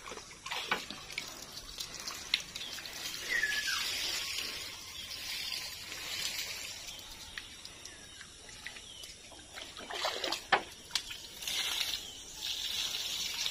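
Water trickling in a shallow stream, with splashing near the end as water is poured by hand from a plastic container over tubers in a mesh bag to wash the mud off.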